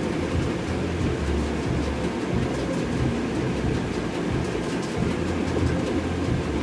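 Steady low rumbling noise, with a deeper hum that swells and fades every second or so.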